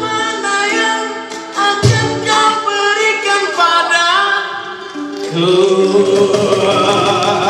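A group of male voices singing together in harmony, holding long notes, with ukuleles strummed underneath.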